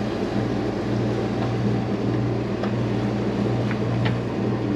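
Steady drone of a sailing catamaran's diesel engine running under way while motor sailing, with a few faint clicks in the second half.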